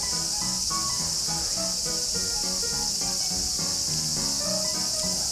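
A steady, high-pitched insect chorus, with background music of short melodic notes underneath.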